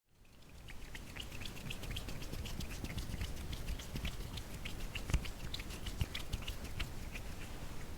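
A dense, irregular run of small soft clicks and crackles, fading in over the first second.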